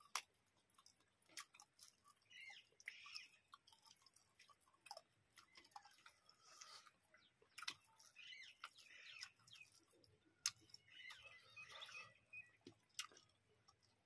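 Quiet close-up eating sounds: chewing and lip smacks from rice and chicken curry eaten by hand, with scattered sharp clicks.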